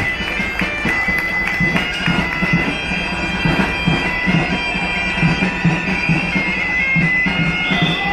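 Bagpipes playing a melody over a steady drone, with drum beats underneath.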